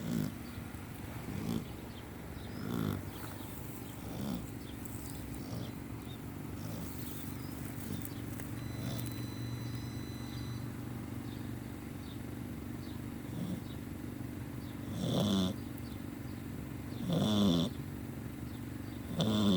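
A dog snoring in its sleep: short snores about every one and a half seconds, dying down to faint breathing for several seconds in the middle, then three louder snores near the end.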